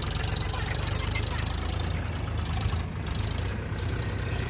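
Diesel engine of a backhoe loader or tractor running steadily at idle, with an even, rapid diesel clatter.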